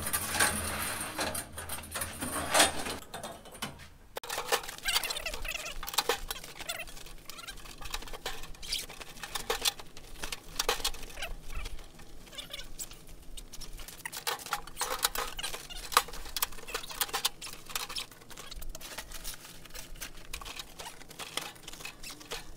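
Fabric rustling and crinkling as a camouflage cover is pulled over a portable grill and worked down around it, with scattered small clicks and knocks of handling.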